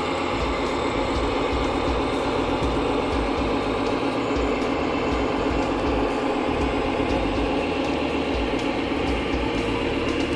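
Radio-controlled model trucks running, a steady mechanical whirring with a fine rattle.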